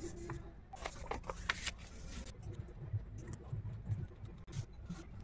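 Stiff craft paper rustling and crinkling as it is folded and pressed by hand, busiest about one to two seconds in, then a few separate short snips of small scissors cutting paper.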